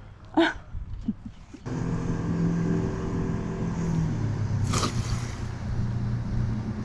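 Boat engine cutting in abruptly after a second and a half and running steadily, its hum stepping down in pitch midway. A single short, sharp noise comes about five seconds in.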